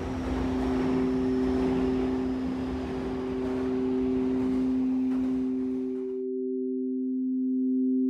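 Sustained electronic drone of two steady pure tones, swelling slowly in loudness, over a wash of background noise that cuts off suddenly about six seconds in, leaving the tones sounding alone.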